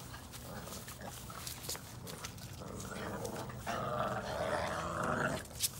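Red Boston terrier puppies play-growling as they tug together on a chew ring. The growling builds through the middle, is loudest for about two seconds, then stops, with a sharp click just after.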